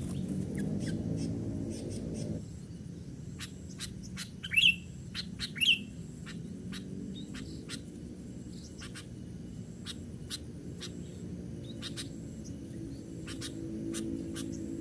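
Sooty-headed bulbuls calling: a run of many short, sharp chirps, with two louder calls about four and a half and five and a half seconds in. A low drone sits underneath, dropping away after about two seconds and coming back near the end.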